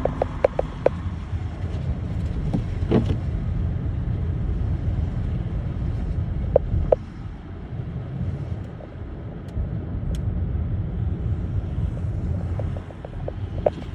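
Steady low rumble of a car driving on a snowy road, with scattered sharp clicks, a few in the first second and two close together about seven seconds in. The rumble eases off just after those two clicks.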